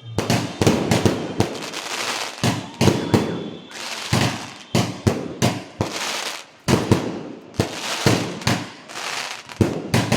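A 128-shot consumer fireworks cake firing its shots in rapid succession: sharp bangs about two to three times a second, each with a short noisy tail, one after another without a break.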